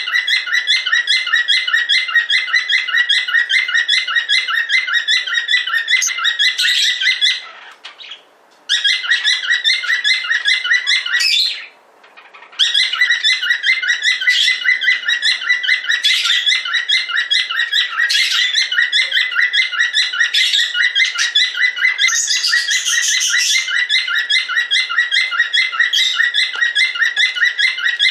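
Pet cockatiel chirping and whistling loudly: a fast, even run of short, high chirps, about five a second, that breaks off twice briefly, about eight and twelve seconds in.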